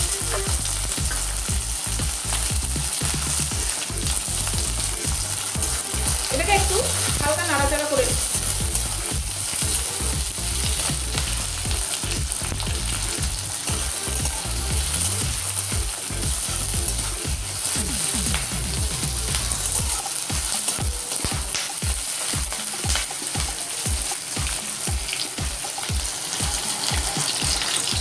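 Chopped onion, ginger and garlic sizzling steadily in hot vegetable oil in a metal kadai, with a metal spatula scraping and stirring them at intervals.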